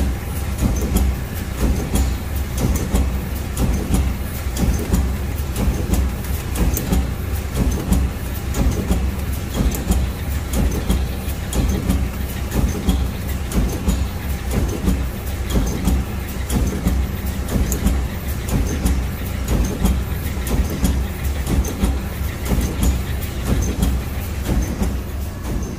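Welded wire mesh machine running: a rhythmic, repeating clatter of the welding heads and wire feed over a steady low hum.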